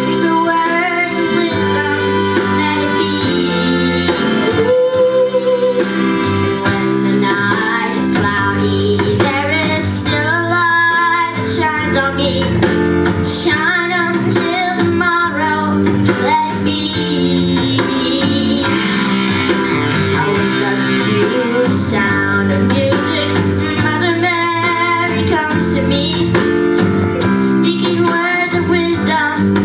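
A female singer sings a song over guitar accompaniment.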